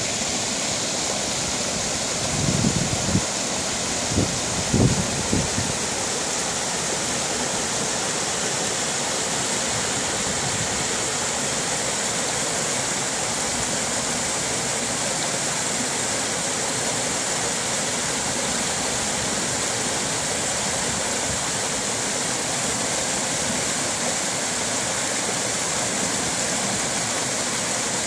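Small creek cascade: water rushing steadily over rock ledges, an even hiss. A few low thumps in the first several seconds.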